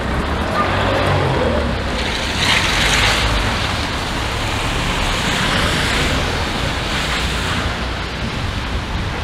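Vehicle tyres hissing on a wet street, swelling about two and a half seconds in and again for a longer stretch past the middle, over a steady low rumble.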